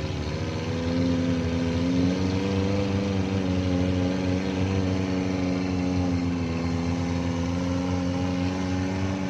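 Suzuki Jimny's engine running at held revs as it pulls along a slippery off-road track, its pitch and level rising about a second in and then staying steady.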